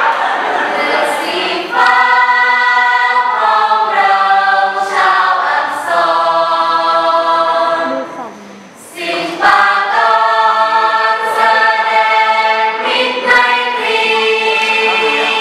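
A large group of voices singing a cheer song together in unison, with long held notes. The song runs in two phrases, with a short break about eight to nine seconds in. The first second or two is crowd noise.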